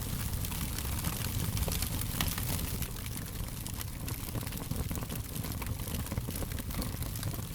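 Wood fire burning, with frequent sharp pops and crackles over a low steady rumble of flames.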